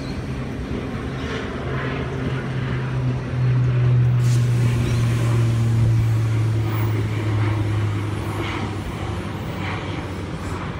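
Tangara electric train pulling away from the platform: a low steady hum that steps down in pitch about three seconds in, swells briefly, then fades as the train draws off.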